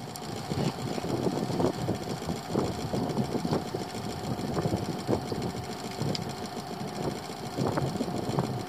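Boat's outboard motor idling steadily, with occasional light knocks.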